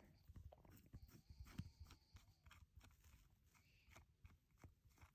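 Faint, irregular small clicks and scrapes of a screwdriver turning a tiny T5 Torx screw out of a Ridge wallet's metal plate, with one sharper click near the end.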